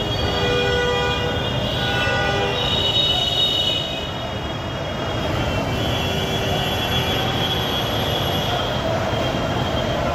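Steady rumble of busy road traffic, with long high-pitched squealing tones that shift in pitch every second or two.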